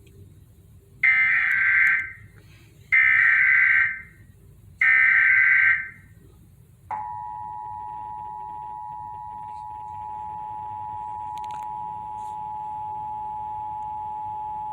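Emergency Alert System signals: three bursts of the SAME digital header, each a harsh warbling data squawk about a second long and a second apart, then the two-tone EAS attention signal held steady for about eight seconds. This is the standard opening of an EAS Required Monthly Test, coming ahead of the spoken test announcement.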